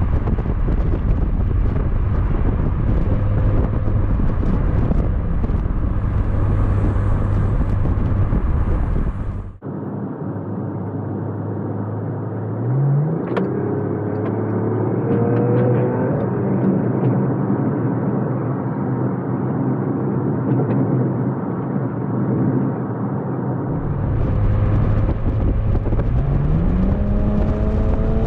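Porsche Macan Turbo's twin-turbo V6 running through a Soul resonated muffler bypass exhaust while driving, with steady engine and road noise. About ten seconds in, the sound changes abruptly and loses its deep rumble. Then the engine note climbs as the car accelerates and settles into a cruise. Near the end the rumble returns and the engine pitch rises again under acceleration.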